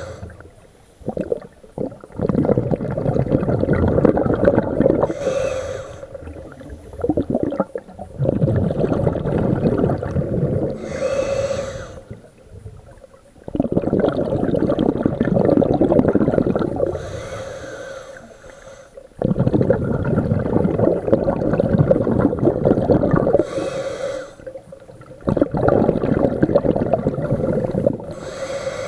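Scuba diver breathing through a regulator underwater: a short hiss of inhalation about every six seconds, each followed by a long rush of exhaled bubbles.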